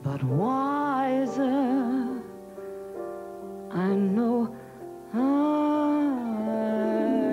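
Female vocalist singing a slow ballad to her own grand piano accompaniment: three long held phrases with wide vibrato over sustained piano chords.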